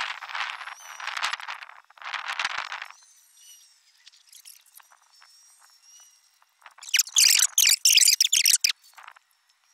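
Outdoor ambience of rasping animal calls in repeated bursts, loud at the start and again for nearly two seconds near the end, with faint high chirps in the quieter stretch between.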